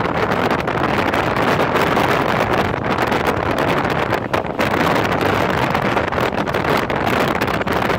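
Steady rush of wind buffeting the microphone over the low rumble of a moving vehicle.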